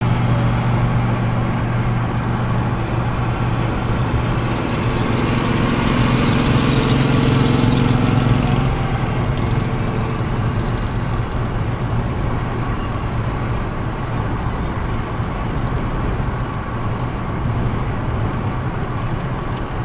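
Car driving at highway speed, heard from inside the cabin: steady tyre and road noise with a low engine hum. The hum swells in the middle and drops away about nine seconds in.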